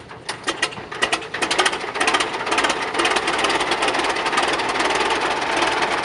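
Caterpillar Thirty crawler tractor's four-cylinder gasoline engine catching after hand-cranking. A few uneven firings in the first second or so quicken, and from about two seconds in it runs steadily with a fast, even exhaust beat.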